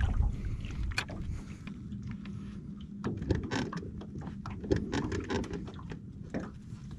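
Wind and water rumble around a small fishing boat, with scattered light clicks and taps of tackle being handled: a jig being tied on, then a spinning rod and reel being worked. A faint steady hum runs under it and stops about three seconds in.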